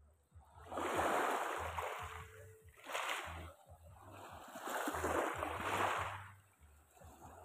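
Small sea waves washing in against the shore in three swells, each rising and falling over a second or two, the longest near the end.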